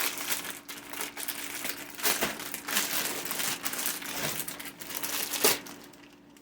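Packaging being crinkled and rustled by hand while items are unwrapped: irregular crackling rustles, the loudest about five and a half seconds in, then dying away.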